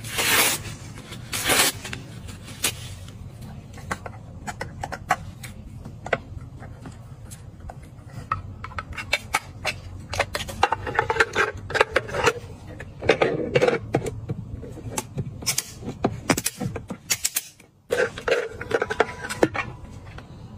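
Hands working craft materials at close range: a string of taps, clicks and crinkly rustles and scrapes, thickest in the middle and near the end, over a low steady hum.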